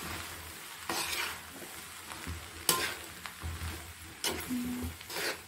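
Spatula stirring and scraping cooked chana dal and jaggery chunks in a hot kadhai, several scraping strokes over a light sizzle. The jaggery is melting into the dal, and the mixture is kept moving so it doesn't stick to the bottom of the pan.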